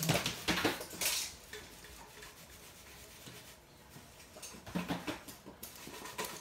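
Toy poodles' claws clicking and pattering on a hard laminate floor as they run, with a few light knocks. The clicks come in a burst at the start and again in the last second and a half, and the middle is quieter.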